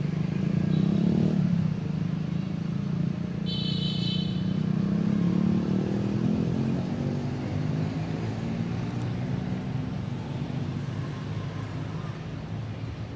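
Motorbike engine passing on a road, a low steady drone that swells and then fades as its pitch slides down. A short high-pitched tone cuts in for about a second, about four seconds in.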